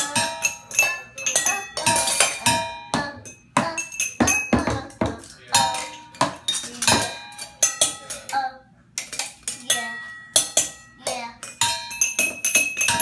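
Stainless steel fondue pot, bowl, metal plate and small cups struck with sticks in a loose, irregular drumming rhythm, many hits leaving a short metallic ring. The playing pauses briefly about two-thirds of the way through.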